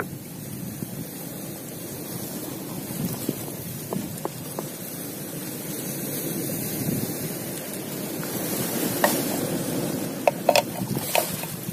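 Surf washing over a pebble beach, a steady rush, with a knife scraping and tapping on a wooden board as fish are cut up; the sharp taps come in a cluster near the end.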